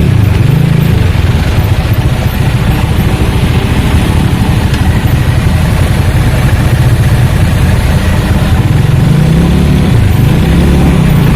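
Diesel engine of an intercity bus running through a loud modified 'knalpot setan' exhaust: a deep, continuous rumble, its engine speed drifting up and down a little.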